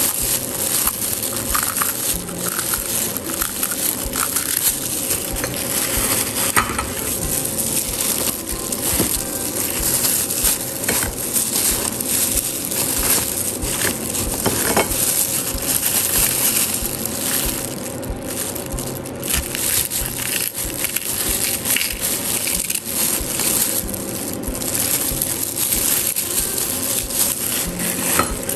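Continuous crinkling and crunching, full of small crackles, from a plastic-gloved hand handling crisp fried sticky-rice cakes close to the microphone.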